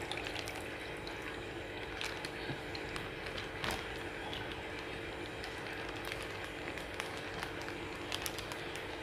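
Plastic fish bag rustling and crinkling, with water pouring out of it as the bag is tipped into a small glass tank. The rustles and light clicks come in scattered bursts over a steady low hum.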